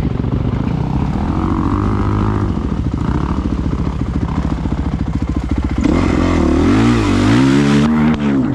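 Dirt bike engine running under throttle on a trail ride, its revs rising and falling; from about six seconds in, the revs swing up and down several times in quick succession.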